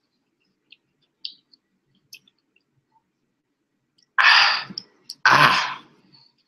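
A man breathing out hard twice, two heavy sighs about a second apart, worn out from forcing down a pound of raw broccoli. Before them come a few faint mouth clicks.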